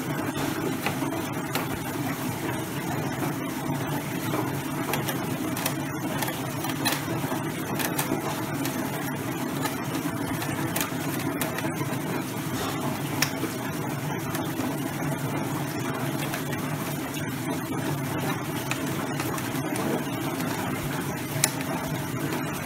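Etching machine running with a steady mechanical hum, with scattered light clicks and knocks as the plate is clamped onto its holder.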